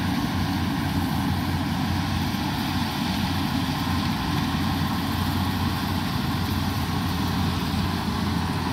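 Yanmar 850 rice combine harvester's diesel engine running at a steady pitch while it cuts rice.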